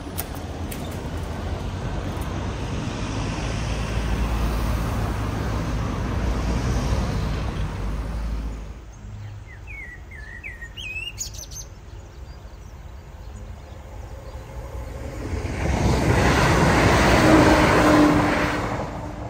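An electric passenger train passes over a level crossing: a rush of wheel and air noise builds over a few seconds to the loudest point, then fades near the end. Before it, a low rumbling noise dies away about eight seconds in, and a bird chirps briefly.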